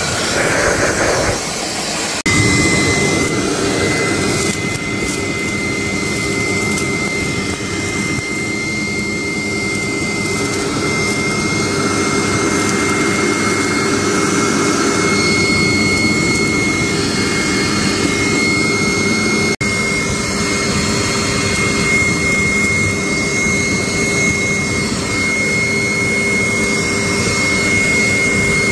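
A high-speed motorized workshop tool or machine running steadily: a loud rushing noise with a constant high whine and a lower hum, briefly broken about two seconds in.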